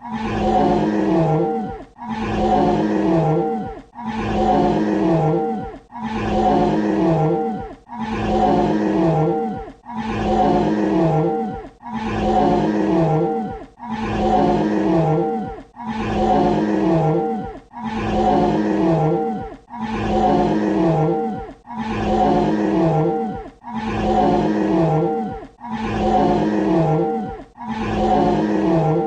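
Dinosaur roar sound effect played on a loop: the same short roar repeats about every two seconds, each ending with a drop in pitch before a brief gap.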